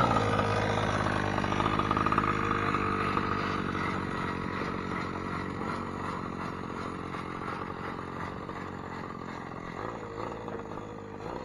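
Gas two-stroke engine of a 1/5-scale RC monster truck running at high revs as the truck drives off, fading as it moves away.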